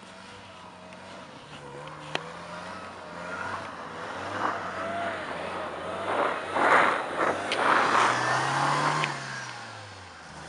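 Car engine revving up and down as its wheels spin on deep snow, with a wavering whine from the spinning tyres. The car is struggling for grip, and it is loudest for about three seconds in the second half.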